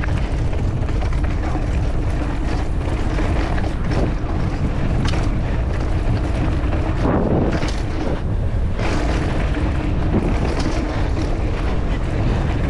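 Wind buffeting the microphone of a mountain bike rider on the move, with the bike's tyres and frame rattling and knocking over a dirt trail.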